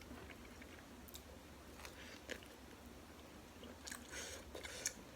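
Faint close-up chewing and wet mouth smacks of someone eating bakso rusuk (beef rib meatball soup), with scattered short clicks that come a little more often near the end.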